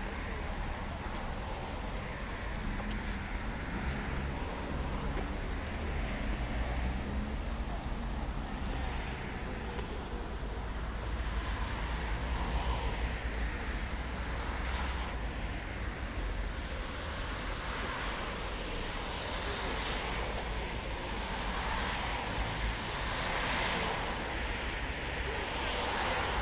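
City street ambience: steady road traffic passing, over a constant low rumble, with the noise swelling slightly now and then.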